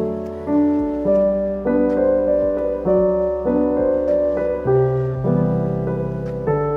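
Background piano music: slow, soft chords changing about once a second.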